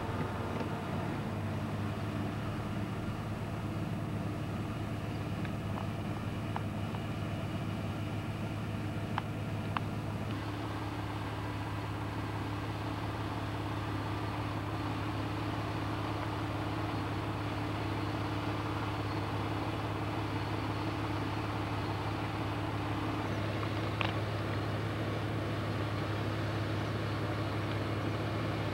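Steady low drone of a vehicle running, with a constant hum and a few faint ticks; the tone of the drone shifts about ten seconds in.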